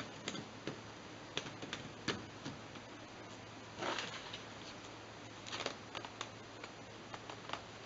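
Plastic laptop case and battery pack being handled: scattered light clicks and knocks as the laptop is turned over and its battery is slid into the bay, with a longer scraping rustle about four seconds in.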